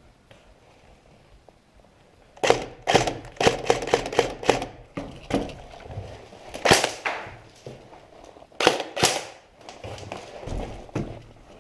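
Airsoft gunfire: after a quiet start, rapid sharp shots in clusters begin about two and a half seconds in, with the loudest cracks near the middle and again later.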